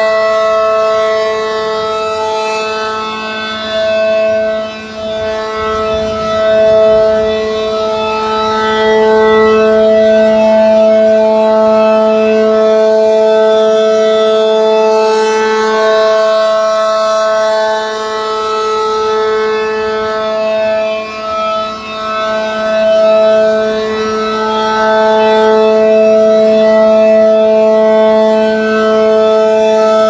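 ACA Allertor-125 8/12 outdoor warning siren sounding a steady alert tone: a loud, unwavering chord that swells and fades as the rotating horn sweeps past. The motor is reverse-wired, so the chopper and rotator turn the wrong way.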